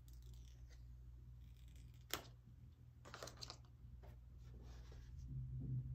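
Plastic protective film being peeled off an iPhone screen: a sharp crackle about two seconds in, then short crinkling rustles as the film comes away, over a steady low hum.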